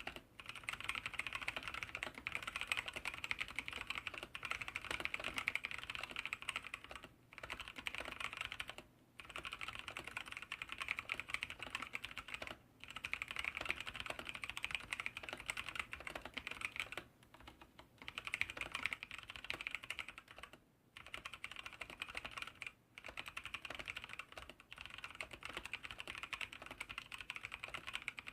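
Fast, continuous typing on a stock, untuned mechanical keyboard with Outemu Brown tactile switches and an aluminium case, broken by brief pauses several times.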